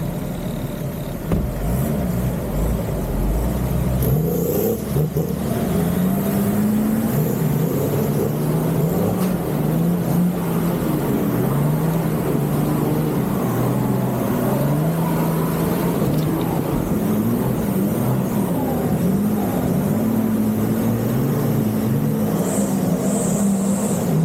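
Off-road 4x4's engine revving up and down again and again under load as it crawls over rough ground.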